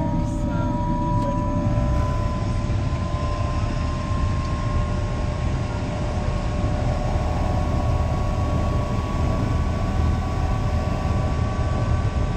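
Helicopter engine and rotor running steadily with a heavy low rumble, over which a thin whine slowly rises in pitch.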